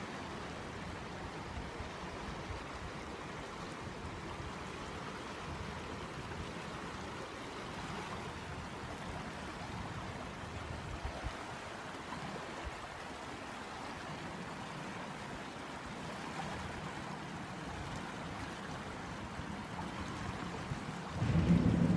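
Steady wash of river water rippling and lapping right at the microphone, which sits just above the surface. About a second before the end a sudden, much louder low rumble cuts in.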